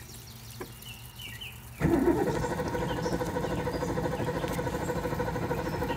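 Starter cranking the boat's 351 Windsor Ford small-block V8. The cranking begins suddenly about two seconds in and runs steadily for about four seconds, then stops without the engine catching. The engine has been sitting, and its mechanical fuel pump has not yet drawn fuel up.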